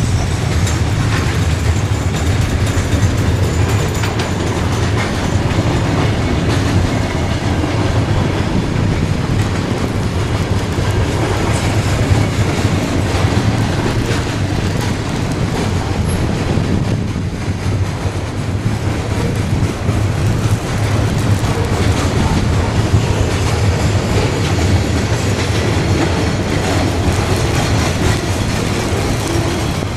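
Mixed freight train's cars rolling past: a steady, continuous running noise of steel wheels on rail, heaviest in the low end.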